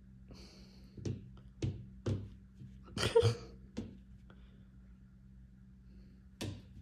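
A ragdoll cat's paws thumping and tapping as it leaps at a laser dot on the wall and lands back on the floor: about six short knocks, the loudest a brief scuffle about three seconds in.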